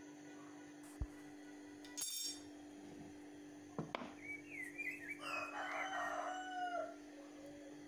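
A rooster crowing, a drawn-out call with rising and falling pitch lasting about three seconds in the second half, over a steady low hum. A few short knocks come before it.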